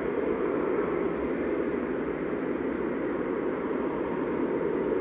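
Steady rushing noise of jet aircraft engines running at an airport, even in level throughout.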